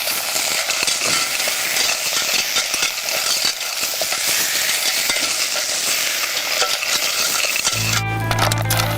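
A pan of freshly added mussels with chopped Alexanders and wild garlic sizzling and crackling in hot oil and wine over an open fire. Background music comes in near the end.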